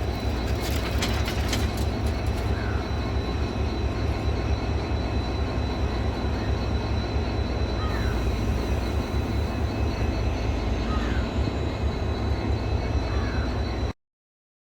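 Passenger train hauled by a WDP4D diesel locomotive running along the track, a steady rumble of wheels on rails with a few sharp clicks about a second in. The sound cuts off abruptly shortly before the end.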